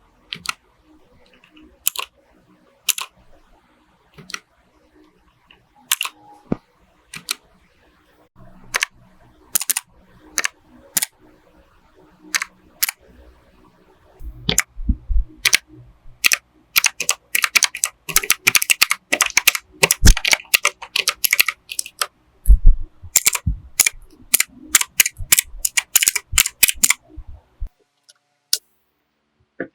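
Ziyoulang T60 mechanical keyboard with clicky blue switches: single keys pressed one at a time, each a sharp click, then rapid typing with a dense run of clicks from about halfway in that stops shortly before the end.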